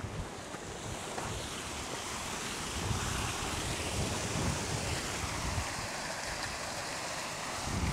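Steady rush of a small river tumbling over rocks in a cascade, with gusts of wind buffeting the microphone in low, uneven rumbles.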